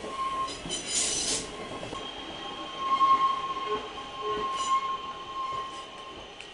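A steady high-pitched mechanical whine, strongest about three seconds in, likened to a washing machine on full spin. Short rustling hisses come and go over it.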